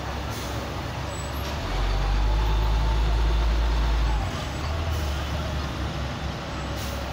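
Heavy road traffic idling and creeping in a jam, with a louder deep rumble for a couple of seconds in the middle, typical of a heavy vehicle's engine close by.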